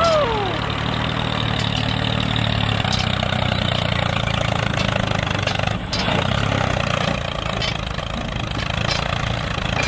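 Tractor engine running steadily at an even level.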